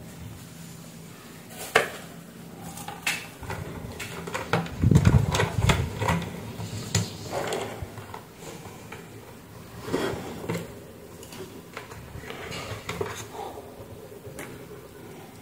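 Hands handling a black plastic blender motor base and its power cord: scattered clicks, knocks and scraping of plastic as parts are fitted and the cord is routed, heaviest about five seconds in.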